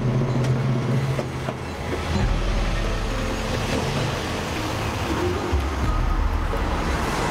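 A car driving off: engine running with tyre and road noise that swells after about two seconds and stays up.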